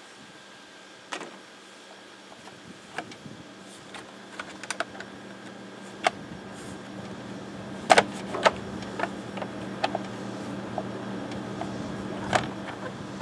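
Scattered metallic clicks and knocks of hand tools and parts as a part is refitted on a small engine by hand. The loudest are a pair of sharp clicks about eight seconds in, over a steady low hum.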